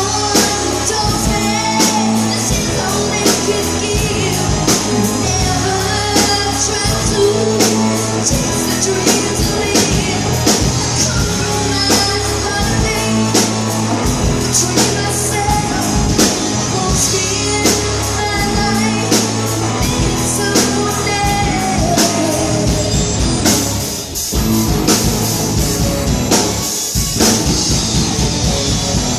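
Rock band playing a song: drum kit keeping a steady beat under guitar, with a singing voice.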